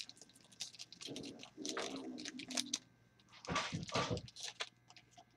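Foil trading-card pack wrapper crinkling and crackling as it is torn and peeled open by hand, in irregular clusters of crisp crackles.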